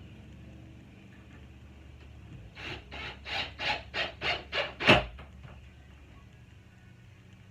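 About eight rasping strokes against wood, roughly three a second, ending in a louder knock.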